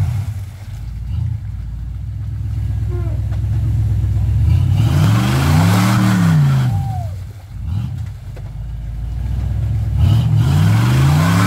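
Off-road buggy's engine running under load in deep mud, revving up and back down twice, around the middle and again near the end. Mud and water splash from the tyres during each rev.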